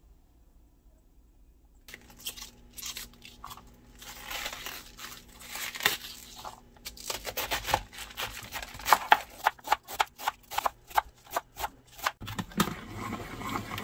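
Crisp tearing and crinkling of outer leaves being pulled off a head of green cabbage. Then a kitchen knife chops through the cabbage on a wooden cutting board, with sharp cuts about three a second.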